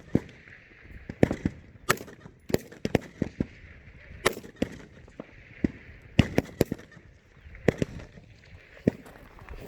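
Rifle shots on a firing range: a dozen or more sharp cracks at irregular intervals, some loud and close, others fainter from rifles further down the line. Typical of M4 carbines fired during Army rifle qualification.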